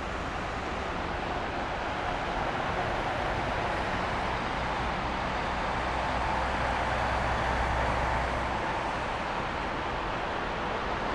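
Jet noise from an Airbus A330-200F freighter's two Pratt & Whitney PW4000 turbofans on final approach: a steady rushing roar with a low rumble, growing slowly louder as the aircraft comes nearer.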